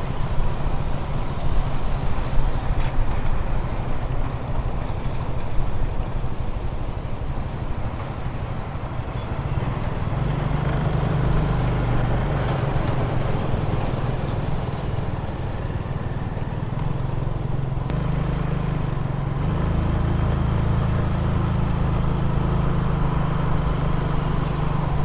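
A motorcycle's engine running steadily as it is ridden along a city road, its pitch shifting a little about ten seconds in and again near nineteen seconds. Road and wind noise run underneath.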